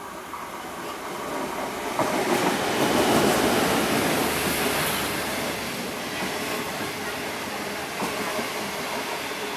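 A DF11 diesel-electric locomotive and its 25Z passenger coaches passing through at speed without stopping. The noise builds as the train approaches, jumps sharply about two seconds in and peaks as the locomotive goes by. It then settles into a steady rush of the coaches with wheel clatter.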